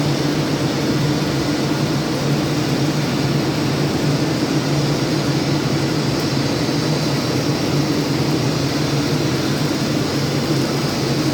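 Automatic flux-cored arc welding on a gantry fillet-welding machine: the arc burns continuously with an even, unbroken crackling hiss over a steady low hum.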